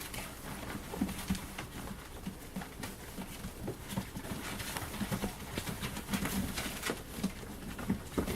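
Puppies at play: irregular short, low grunts mixed with scattered clicks and rustling as they scramble around a play tunnel.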